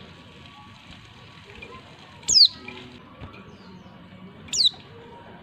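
Female white-eye (pleci) giving two short, high calls a little over two seconds apart. Each call is a quick downward sweep, heard over faint background bird chatter.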